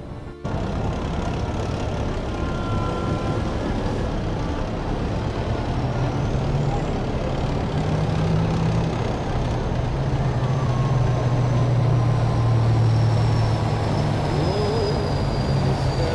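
Column of tracked armoured vehicles (an infantry fighting vehicle and main battle tanks) driving past: a steady heavy diesel engine drone with track noise that grows louder as they approach, and a faint high whine slowly falling in pitch.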